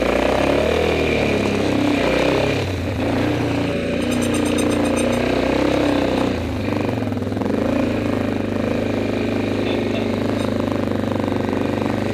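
Single-cylinder ATV engine running under way on a dirt trail, its pitch easing off and picking up again a couple of times, with a brief rattle about four seconds in.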